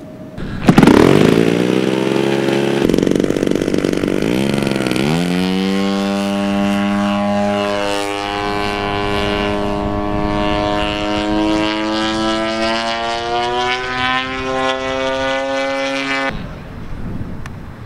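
Radio-controlled model airplane's engine and propeller. It comes in loud about a second in with its pitch falling sharply, then picks up around five seconds in into a steady, high drone that creeps slowly up in pitch. The sound cuts off abruptly near the end.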